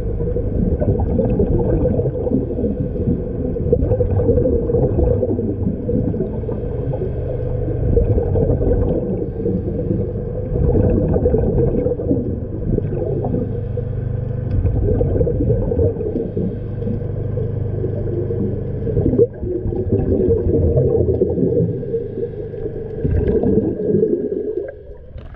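Muffled underwater rumble and gurgling picked up through an action-camera housing, with a steady hum running through it.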